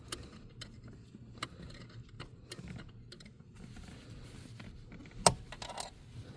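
Scattered light clicks and small rattles of a screwdriver working a rubber brake-pedal stopper into its hole behind the pedal, with a sharper knock about five seconds in.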